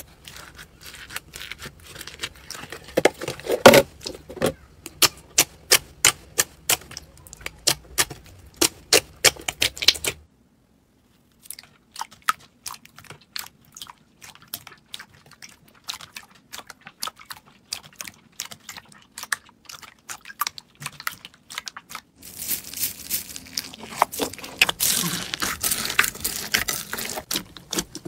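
Slime being squeezed and kneaded by hand, giving irregular sharp clicks and pops. The clicks are dense and loud for about the first ten seconds, sparse and soft through the middle, and turn into a busier crackling hiss for the last few seconds.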